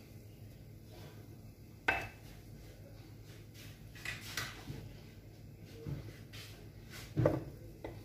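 Kitchen utensils knocking against a glass pot on the stove: a sharp clink about two seconds in, a few lighter knocks, and a louder clatter near the end, over a steady low hum.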